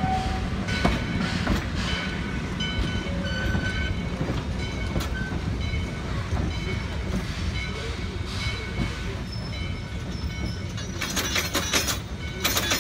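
Open passenger cars of a narrow-gauge railroad rolling along the track: a steady low rumble with scattered clicks and a few short high squeaks, breaking into fast, dense clattering near the end.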